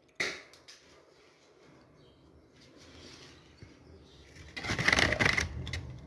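Handling noise from electrical installation work: a sharp click just after the start, a few light ticks, then about a second of loud rustling near the end.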